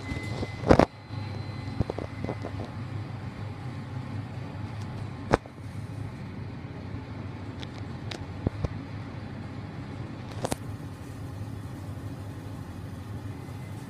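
Hitachi machine-room-less lift car travelling upward: a steady low hum and rumble of the ride, with a sharp knock about a second in and a few faint clicks later.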